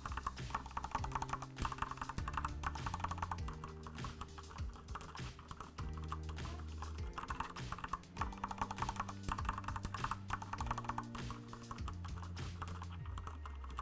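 Rapid clacking key presses on a mechanical keyboard fitted with Corsair PBT double-shot keycaps. Some of the keys have rubber O-ring dampeners under the caps and some do not, so dampened and undampened strokes sound side by side. Background music runs underneath.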